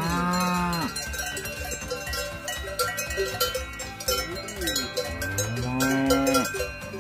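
Cowbells on grazing cattle clanking and ringing as the cows walk. One cow moos twice, a long call near the start and another a little before the end.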